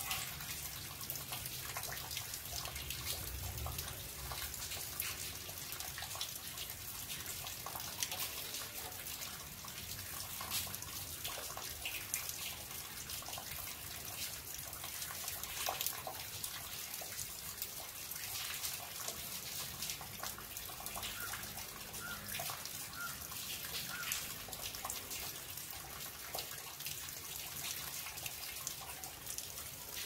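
Rainwater running off a terrace and splashing steadily onto wet ground in light rain, with many small drips scattered through it.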